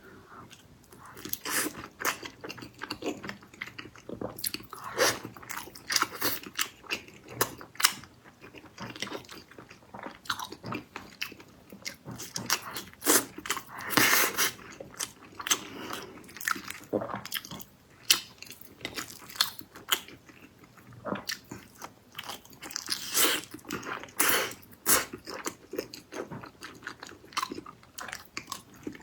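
A person chewing and biting food close to the microphone: a steady run of irregular crunchy bites and wet, smacking mouth sounds.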